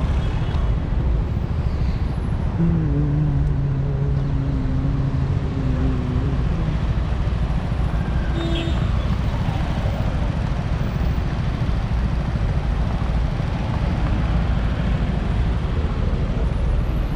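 City street traffic: a steady low rumble of passing vehicles, with a low hum standing out for about four seconds a few seconds in.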